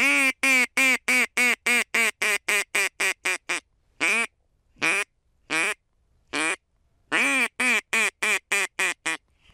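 Mouth-blown duck call imitating a duck's quacks to draw in a passing duck: a fast run of about fifteen quacks that get quicker and shorter, four slow single quacks, then another run of about ten.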